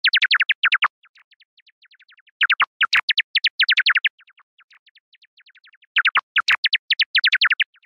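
Bat calls: rapid trains of short high chirps, about eight a second, coming in loud bursts at the start, about two and a half seconds in and about six seconds in, with fainter chirps between.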